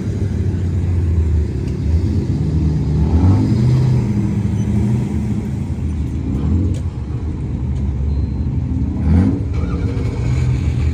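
Car engines running as cars move slowly across an asphalt lot, with the revs rising briefly about three seconds in and again near the end.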